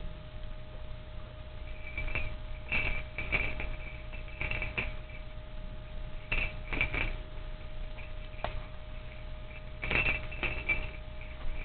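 Small bells on a feathered cat teaser toy jingling in short bursts, again and again, as a cat bats and tugs at the toy.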